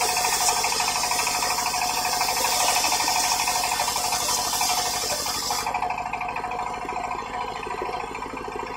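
Circular sawmill blade ripping a teak beam lengthwise, a loud, dense, steady cutting noise with a strong high hiss. About six seconds in the cut runs out and the hiss drops away, leaving the blade spinning free over a steady low pulsing.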